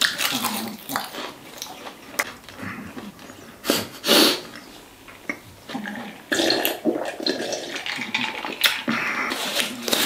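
Close-miked eating sounds: chewing a mouthful of gim-wrapped rice, then gulping water from a glass, with crinkling of a disposable plastic glove being pulled off near the end.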